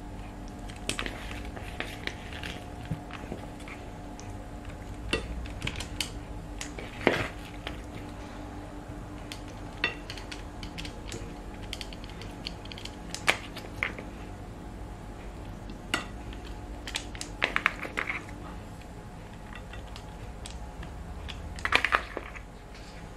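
Kitchen tongs clicking and scraping against a serving platter and a plastic bowl as boiled vegetables are picked up and laid out: scattered taps and short scrapes, the loudest about seven, thirteen and twenty-two seconds in, over a faint steady hum.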